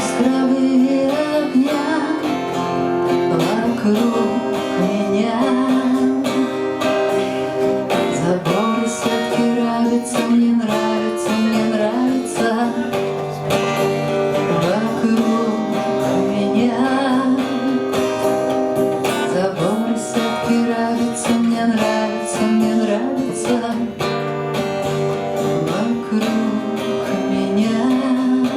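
Acoustic guitar playing a song's instrumental passage, strummed and picked in a steady repeating pattern with sliding melodic phrases.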